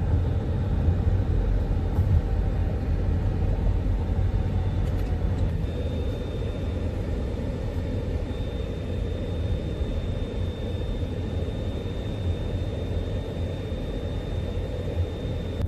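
Steady low road and engine rumble heard from inside a car cruising on a highway, with a faint thin high whine coming in about six seconds in.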